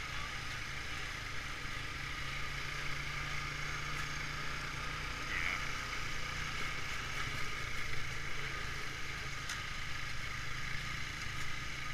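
Honda ATV's single-cylinder engine running steadily as the quad rides along.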